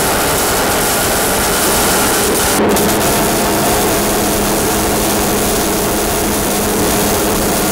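MIG welding arc from a Millermatic 211 in gas-shielded mode, sizzling steadily as a bead is run on a steel frame, with a brief break about two and a half seconds in.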